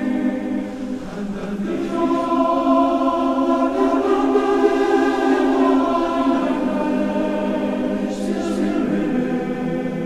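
A choir singing long held chords without clear words, the chord changing every two seconds or so.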